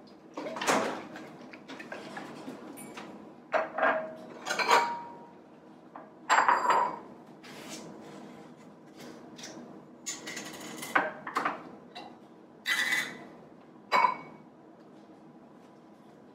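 Dishes and utensils clinking and knocking on a kitchen countertop as they are handled, in about a dozen irregular clatters, some ringing briefly.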